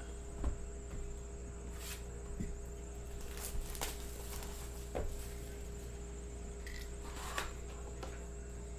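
Cardboard trading-card box being handled and its lid flap opened: a few faint scattered taps and rustles over a steady electrical hum.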